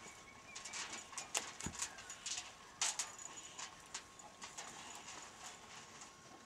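A Clydesdale's hooves clopping as the horse shifts its feet, making a string of irregular knocks in the first few seconds, the loudest about one and a half and three seconds in.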